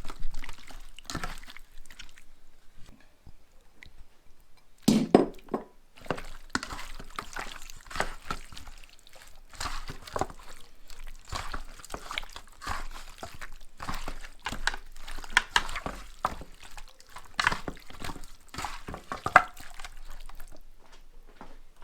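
Wet squelching and sloshing of raw chicken pieces being worked by hand through an oily marinade of spices, lime juice and chopped serrano peppers, in irregular strokes with a louder knock about five seconds in.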